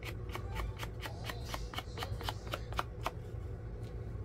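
A quick run of light clicks and ticks, about six a second for some three seconds, then a few more spaced out: hands working paper and lace trim on a craft table. A steady low hum lies underneath.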